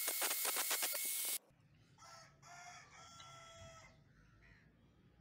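Angle grinder disc grinding against a steel screwdriver shaft clamped in a vise, a loud dense rasp that cuts off abruptly about a second and a half in. After it a rooster crows once, fainter, in the background.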